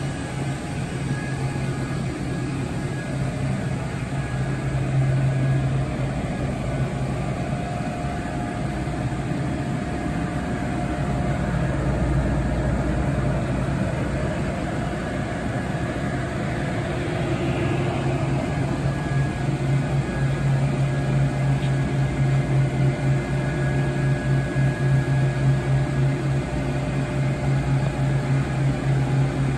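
Steady low electrical hum of a powered-up Mazak Nexus 510C vertical machining center idling, with a fan-like hiss and a few faint steady whines above it.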